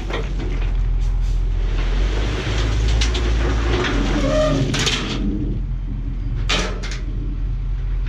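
Dump truck engine running while a load of recycled concrete rubble slides out of the raised bed in a dense rattling pour that dies away about five seconds in. A couple of short scraping knocks follow as the last pieces settle or the tailgate swings.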